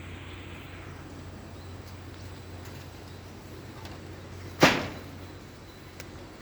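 Steady background noise with one loud, sharp knock about four and a half seconds in that rings briefly, and a couple of faint ticks.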